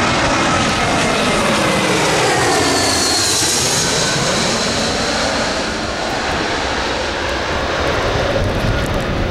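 Airbus A320 jet airliner on final approach to land, its engines giving a steady loud rush with a whine. The whine and other tones slide slowly down in pitch as the jet draws nearer.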